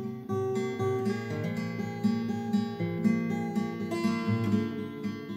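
Acoustic guitar played with regular strokes through a slow chord progression, the chord changing every second or so.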